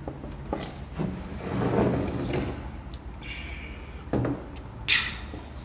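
Water being drunk from glasses, with soft swallowing and handling sounds and a few sharp knocks of glass, the loudest near the end, as a glass meets the wooden tabletop.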